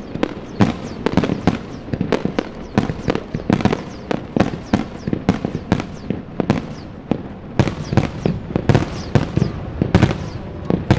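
Fireworks display: a dense, continuous barrage of aerial shell bangs and crackles, several a second, with no let-up.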